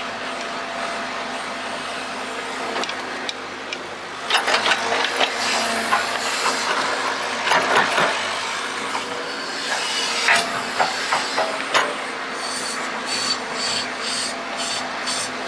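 Excavator running with a steady hum, with a run of irregular scraping and crunching from about four to twelve seconds in as the bucket digs through soil.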